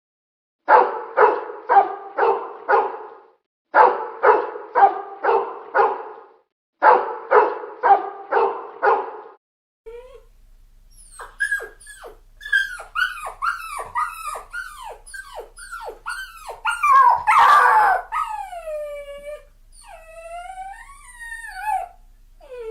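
A dog barking in three bursts of about five barks each, with short pauses between them. Then a dog whimpering and yelping in quick cries that fall in pitch, one louder cry a little past the middle, and a few drawn-out falling whines near the end.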